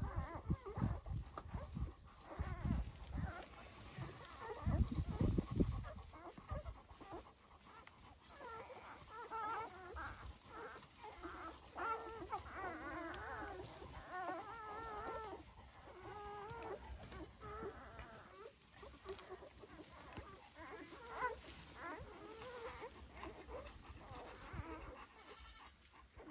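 Three-day-old newborn puppies squeaking and whimpering while they nurse: many short, wavering high cries overlapping, thickest through the middle. Dull low thumps come in the first few seconds.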